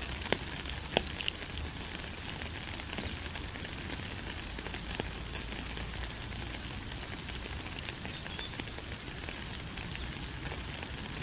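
Steady rain falling, with a few sharp drip ticks in the first second and a few brief, faint high bird chirps, one about eight seconds in.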